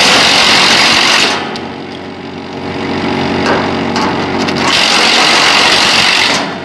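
An extra-large feed cutter (SC-7000, driven by a 10-horsepower three-phase motor) is running and chopping white plastic tubing fed into its hopper. There is a loud chopping noise during the first second or so and again from about five seconds in. The machine's steady hum carries on in between.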